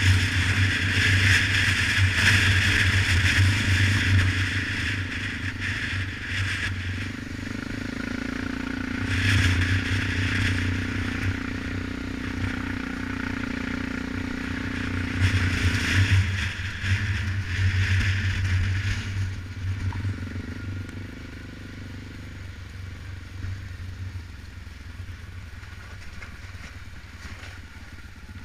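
ATV engine running while riding a rutted dirt road, with tyre and rattling noise from the machine. It surges louder three times, then eases off about two-thirds of the way through.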